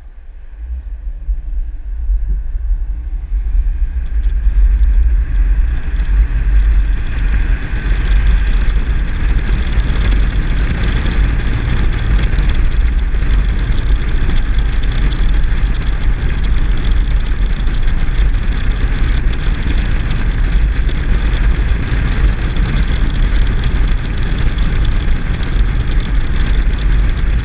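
Car on the move, heard mostly as heavy low wind rumble on the microphone and tyre and road noise. It grows louder over the first several seconds as the car picks up speed, then holds steady at cruising speed.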